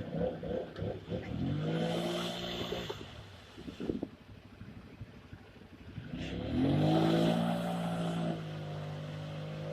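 Polaris Sportsman 850 ATV's parallel-twin engine revved up twice and held, each rev climbing and then dropping back, ending in a steadier lower run. There are a few sharp knocks near the start. The quad's front outer CV joint is broken.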